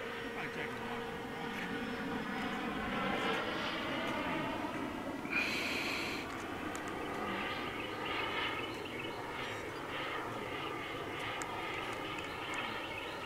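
Turbine engine of a radio-controlled model jet flying past, a steady jet rush that grows a little louder a few seconds in. A short burst of hiss about five and a half seconds in.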